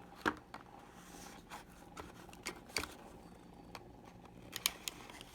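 Knife cutting and scraping at product packaging: scattered faint clicks and scrapes, a few sharper ones.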